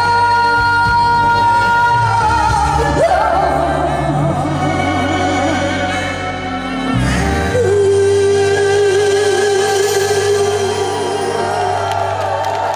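Live trot song: a female singer holds long, wavering notes over band accompaniment, with a pitch drop about seven seconds in, as the song draws to its close.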